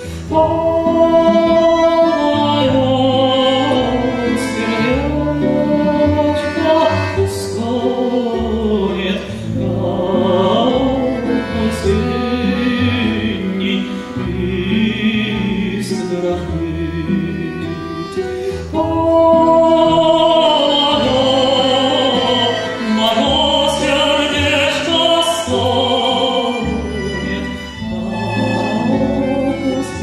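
Male tenor singing a slow Russian folk song live into a headset microphone, with instrumental accompaniment. He holds long notes with vibrato.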